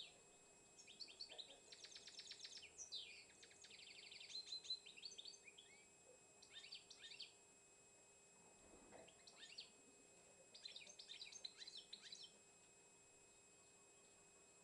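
A caged songbird singing faintly in bursts of chirps and fast rattling trills, with short pauses between phrases and a longer quiet gap near the end.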